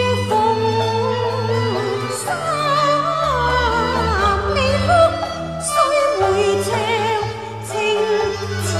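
Cantonese opera music: a traditional ensemble playing a continuous passage with a sustained low accompaniment and a wavering, vibrato lead melody.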